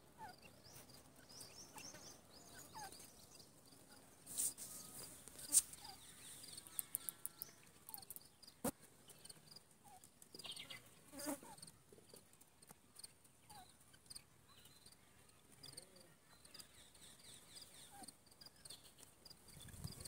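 Quiet outdoor ambience with faint, scattered short bird chirps and a few sharp clicks and scratches, the loudest about five seconds in.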